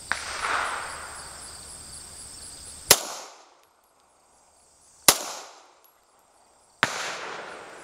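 .45-calibre semi-automatic pistol fired four times, single shots about two seconds apart, each a sharp crack with a short decaying echo; the first is a little less sharp than the other three.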